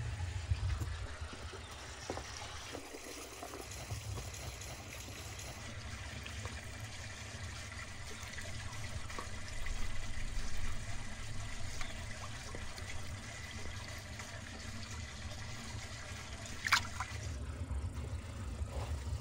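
Water dribbling and lightly splashing as raw beef brains are lifted dripping from a bowl of water and set into a large pot of water, over a low steady outdoor background. One brief sharper sound comes near the end.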